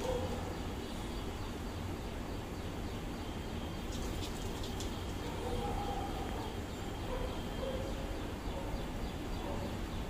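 Pigeons cooing softly in low, wavering phrases, mostly in the second half, over a steady background rumble.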